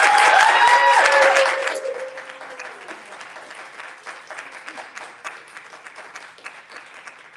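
Audience applauding with a whoop or two of cheering, loud at first, then dying down after about two seconds to scattered clapping.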